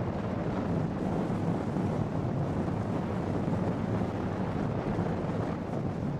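Steady low rumble of a car driving, with road noise and wind buffeting the microphone.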